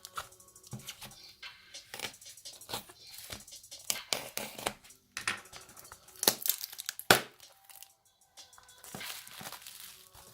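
A small parcel's packaging being handled and opened: irregular crinkling, rustling and tearing with sharp crackles, the loudest snap about seven seconds in.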